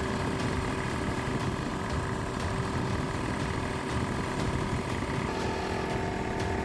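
Piston air compressor running steadily while pumping up its tank, its new cylinder head gasket sealed so that no air leaks at the head. A higher tone comes in about five seconds in.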